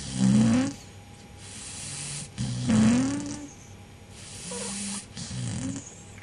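Staffordshire bull terrier snoring in its sleep: two loud, pitched, wavering snores about two and a half seconds apart, each followed by a hissing breath, then fainter snores near the end.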